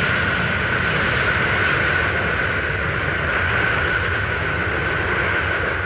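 Boeing 747 jet engines running as the airliner rolls along the runway: a steady broad rush with one high, even whine.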